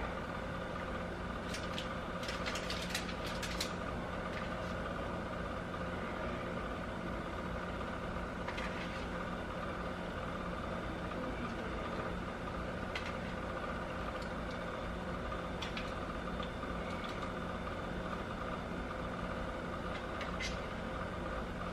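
A steady mechanical hum runs throughout, with a few faint, scattered clicks and taps of kitchen handling as bacon is laid on the bagels.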